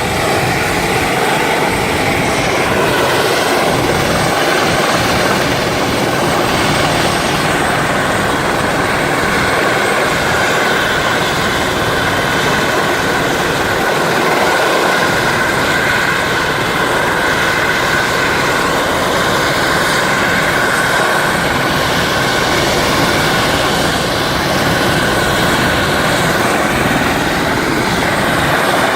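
Helicopter taking off: its turbine and rotor running loud and steady, with a high whine over the rotor noise.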